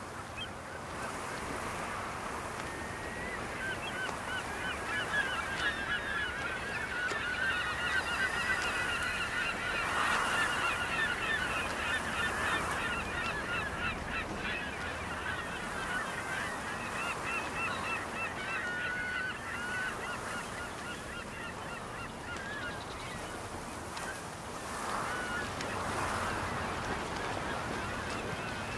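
A flock of seabirds calling in rapid, overlapping short calls, thinning out after about twenty seconds, over the steady wash of surf.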